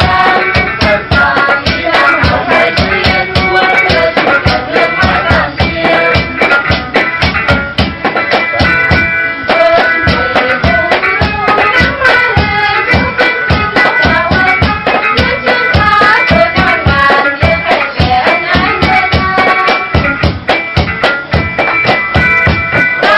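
Instrumental background music with a fast, steady percussion beat under a melody.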